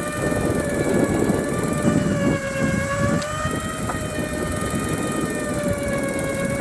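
Electric fishing reel's motor whining steadily as it winds line in, its pitch wavering slightly, over rough wind and water noise.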